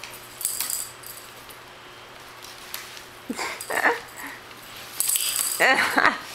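A kitten batting at a rocking cat toy: the ball on the wire arch rattles and jingles in bursts, near the start and again about five seconds in, while the plastic rocker moves on the wood floor with a few short squeaks.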